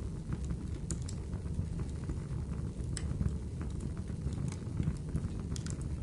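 A steady low rumble with sharp crackles and pops scattered irregularly through it, making up a looping ambience track.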